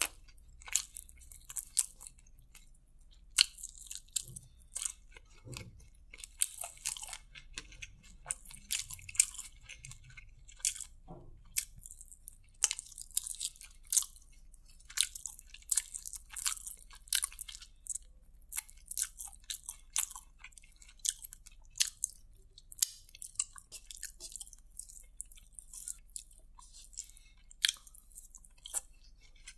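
Close-miked chewing and biting of a fried chicken lollipop, with many irregular crisp crunches and wet mouth clicks. Near the end comes a mouthful of fried rice.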